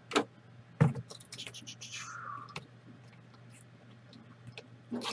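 Scattered light clicks and taps, with a short scraping swish about two seconds in.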